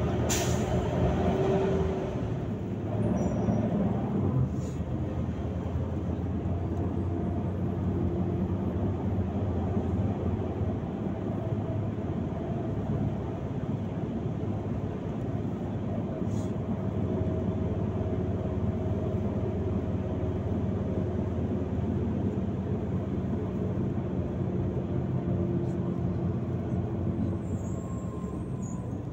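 Volgabus-5270 city bus under way, heard from inside: steady engine hum and road noise. A brief sharp click about half a second in.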